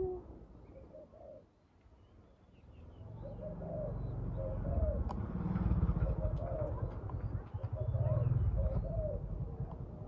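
Spotted doves cooing: one faint coo about a second in, then from about three seconds a string of short repeated coos over a low rumble.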